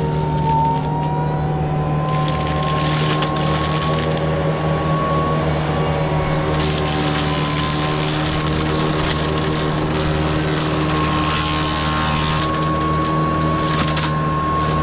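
A tractor engine runs steadily under load while its mowing or mulching head chews through brush and branches. The cutting noise swells and thickens at times over the engine's even drone.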